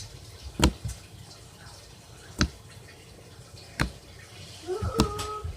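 Homemade slime being poked and pressed, making four sharp wet clicks and pops spaced more than a second apart.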